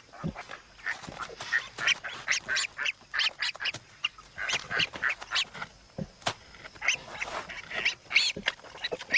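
Newborn warthog piglets squeaking and squealing in many short, high calls, several a second.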